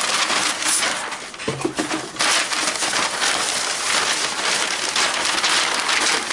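Large rolled paper posters and their thin tissue interleaving sheets rustling and crinkling as they are unrolled, handled and rolled back up by hand.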